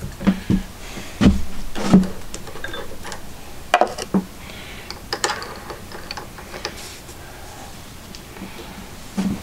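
Irregular knocks, clicks and rustling of tools and metal parts being handled at a workbench.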